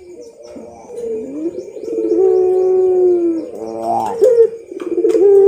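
Puter pelung (Barbary dove) cooing: long, drawn-out coos that slide slowly down in pitch, one after another, with a short break about two-thirds of the way through.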